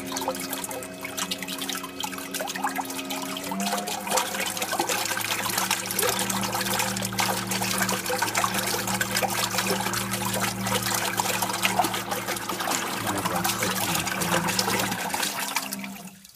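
Blue Robotics T200 underwater thruster running submerged in a tub: its motor hums steadily under the splash and churn of the water it stirs. The hum steps up in pitch about four seconds in, and the sound cuts off shortly before the end.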